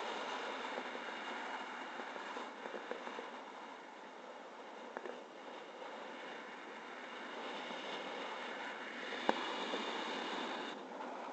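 Wind noise on a paraglider's action camera in flight: a steady hiss of air that eases about halfway through and builds again, with a sharp click about nine seconds in.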